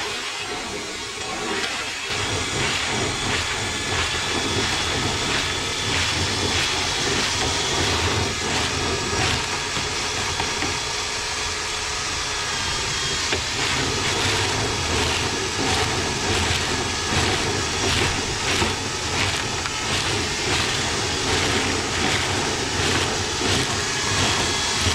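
Dryer vent cleaning equipment running inside a lint-clogged metal vent pipe: a steady motor hum and whine that come up about two seconds in, with continual rattling knocks as the tool and loosened lint strike the duct.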